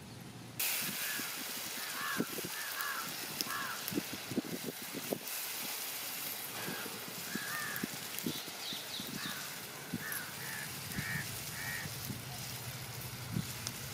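A metal spatula knocking and scraping against a pot as a thick crab curry is stirred, with birds calling in short bursts in the background over a steady hiss.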